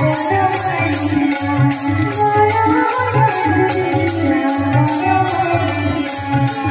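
Live bhajan music amplified over a PA system: a woman singing a devotional melody with harmonium and tabla keeping a steady beat.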